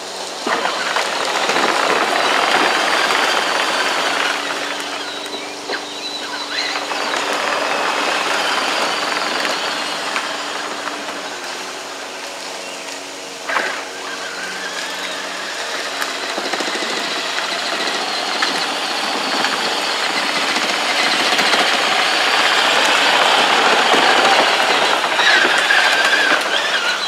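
Power Wheels Ford F-150 ride-on toy truck, loaded with a 30 lb sandbag, driving on concrete: its electric drive motors and gearboxes run with a faint whine under the rattle of the hard plastic wheels. It fades as the truck moves away, with a single knock about halfway, and grows louder again as it comes back.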